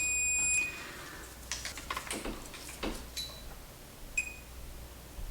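Multimeter continuity beeper: a steady beep stops about half a second in, then come clicks and taps of the test probes, and a short beep near the end as the probes bridge a shorted output transistor's collector and emitter.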